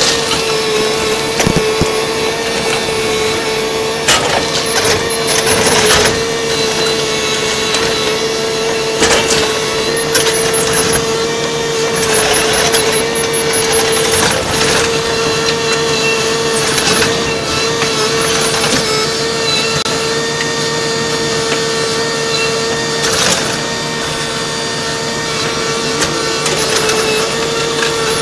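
Demolition sound sped up to four times normal speed: the Kobelco SK220LC hydraulic excavator's engine as a steady high-pitched drone, with several crashes and crunches of masonry and timber as its bucket breaks down the wall.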